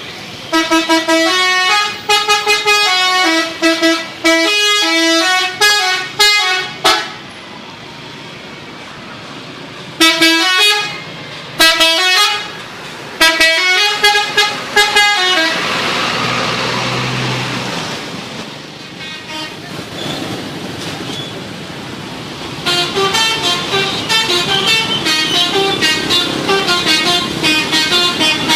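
Bus 'telolet' musical horns playing quick stepping tunes of several notes, over and over in bursts. About halfway through the horns stop and there are several seconds of road and engine noise. Near the end the tune starts again.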